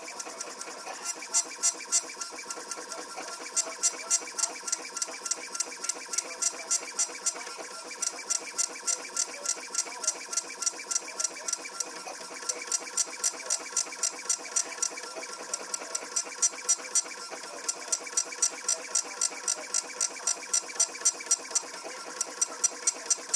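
Computer-controlled engraving machine working on a fountain pen barrel clamped in its jig. A steady motor hum runs under runs of sharp ticks, about three or four a second, broken now and then by short pauses.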